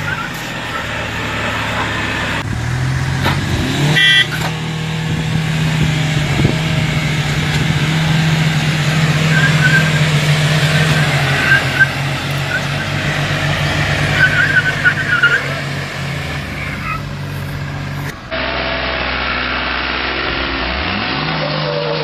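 A farm tractor's engine and an SUV's engine running hard and steady under load as they pull against each other, the pitch stepping up about three seconds in and then holding. Near the end, after a sudden change, a vehicle engine revs up.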